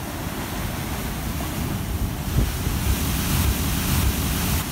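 Heavy ocean surf breaking and surging against rocky cliffs below, a dense rushing wash with a deep rumble that swells louder about halfway through. Wind buffets the microphone.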